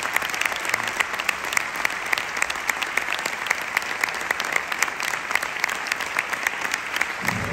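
Theatre audience applauding: dense, steady clapping of many hands.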